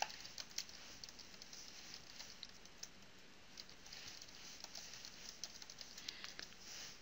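Faint typing on a computer keyboard: an uneven run of light key clicks, busier in the second half.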